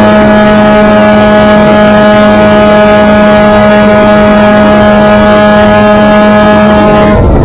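Formula Mazda race car's Mazda rotary engine running hard at a steady pitch, heard on the car with a rough rush of wind and road noise underneath.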